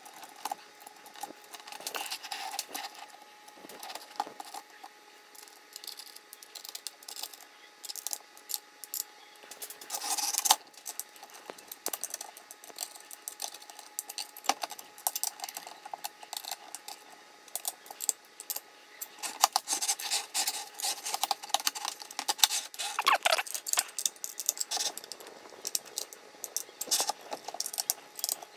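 Hand assembly of an aluminium extrusion frame: an Allen key and small metal parts clicking, scraping and rattling at irregular intervals as screws are turned. There is a longer scrape about ten seconds in and another near twenty-three seconds.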